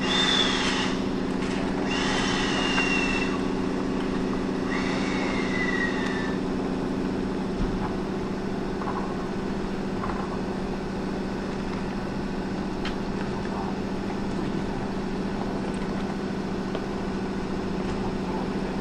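EF65 electric locomotive standing at the platform with a steady low electrical hum, part of which cuts out about seven seconds in. Three high-pitched metal squeals from the train's running gear come in the first six seconds, each sliding down in pitch.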